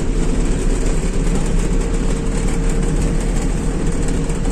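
Eicher truck's diesel engine and road noise heard inside the cab while cruising, a steady drone with a thin steady whine running through it.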